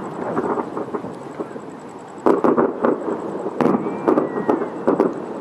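Aerial fireworks bursting, with two loud bangs about two and three and a half seconds in among dense crackling.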